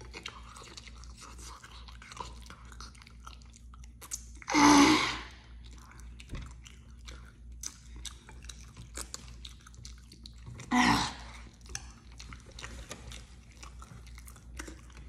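Close-miked chewing of a mouthful of scrambled eggs, with many small wet mouth clicks throughout. Two louder, longer sounds stand out, about four and eleven seconds in.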